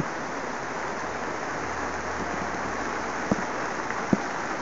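Rain falling on the plastic sheeting of a PVC greenhouse, heard from inside: a steady hiss with a few sharp taps.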